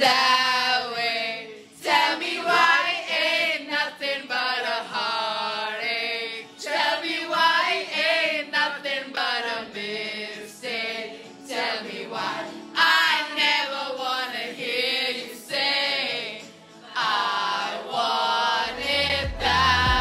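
A group of voices singing a song loudly together, with wavering held notes. Near the end a deep bass beat of music comes in.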